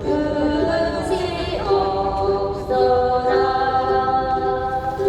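A group of voices singing together in unison, with a long held note in the last couple of seconds.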